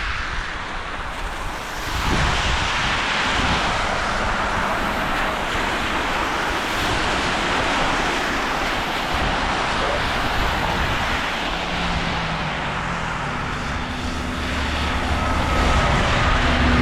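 Street traffic with a steady rush of tyre and road noise. In the last few seconds a heavy vehicle's engine hums low and close, getting louder.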